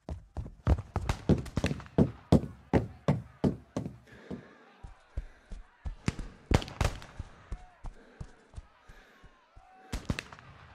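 A quick series of sharp knocks, about three a second for some four seconds, then fewer and fainter, with two close knocks near the end.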